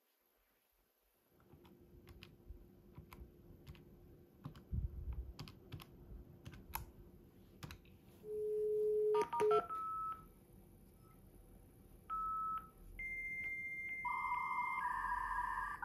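Dial-up modem placing a call through its speaker. After light key clicks, the line's steady low dial tone sounds, then three quick touch-tone digits (star, star, two). Two mid-pitched calling-tone beeps follow, then the far end's higher steady answer tone, and near the end the two-tone warbling of the modem handshake begins.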